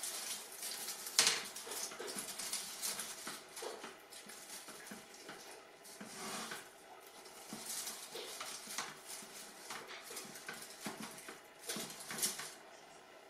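Fir sprigs rustling and scraping against the wooden rods of a wicker wreath as they are pushed in between them. The rustles and crackles come irregularly, loudest about a second in and again near the end.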